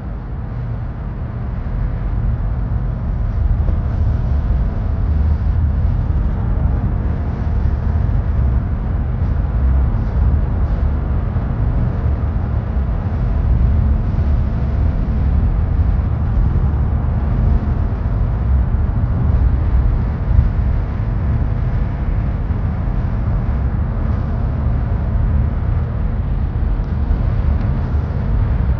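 Steady low road and engine rumble inside a moving car's cabin, tyres rolling on asphalt.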